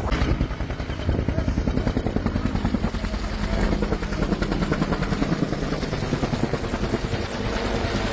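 Helicopter flying overhead, its rotor beating in a fast, even rhythm.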